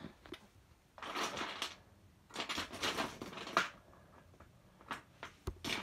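Plastic Lego pieces and toys being rummaged through and handled, in short rustling, clattering bursts with a few sharp clicks and one low knock near the end.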